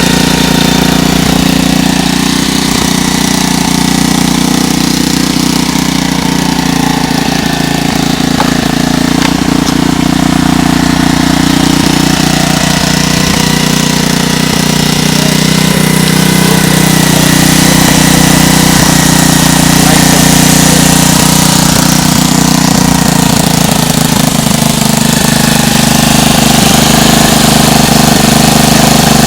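Lifan 125cc single-cylinder four-stroke engine on a pocket bike, running steadily at idle, loud and close, freshly swapped in and just got running. Its level swells a little past the middle and holds there.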